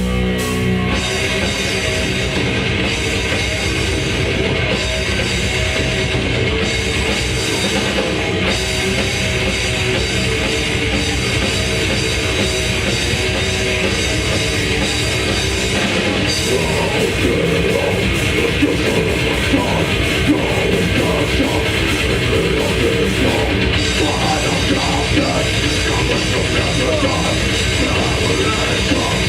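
Death metal band playing live at full volume: dense distorted guitars and fast drumming. A held low note gives way to the full band about a second in.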